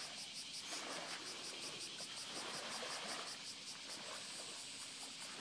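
Faint outdoor ambience: insects chirping steadily high up, pulsing several times a second, over soft lapping of small waves at the water's edge.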